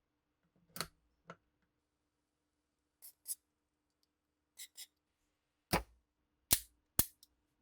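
Sharp metallic clicks and clacks from working the action of a restored Frommer pistol, about nine in all, in pairs and singles, the last three the loudest.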